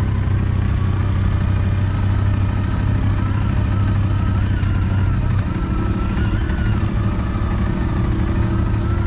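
CFMOTO 625 ATV engine running steadily at low revs as the quad crawls at walking pace over a rough forest trail, with a faint higher whine alongside. The engine note shifts about five and a half seconds in.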